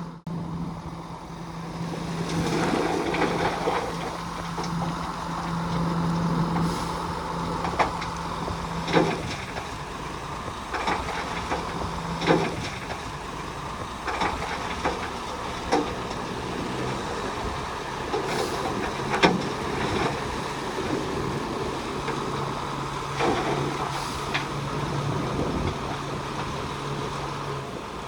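Heavy diesel earthmoving machinery running steadily, with scattered sharp clanks and knocks. The engine note drops a little about halfway through.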